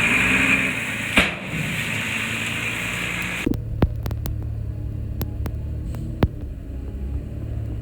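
Heavy construction machinery's diesel engine running, with a sharp knock about a second in. About three and a half seconds in, the sound changes abruptly to a lower, steady engine hum with scattered clanks.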